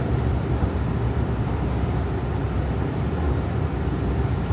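Subway train running: a steady low rumble with a wash of running noise.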